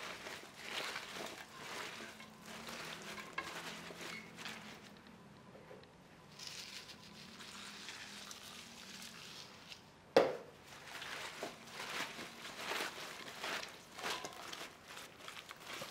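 Gloved hands tossing scallions with dry chili powder in a stainless steel bowl: irregular rustling and brushing of the stalks. About two-thirds of the way through comes one sharp knock with a short ring, the loudest sound.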